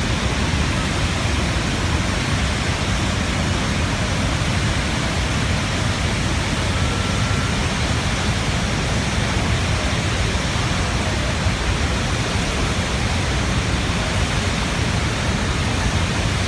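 Niagara Falls' falling water making a loud, steady rushing roar.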